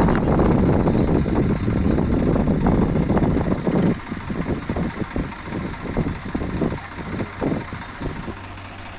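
Swaraj 855 FE tractor's diesel engine working hard as it hauls two trailers loaded with sugarcane. The engine is loud for about four seconds, then drops quieter and runs unevenly, with irregular knocks.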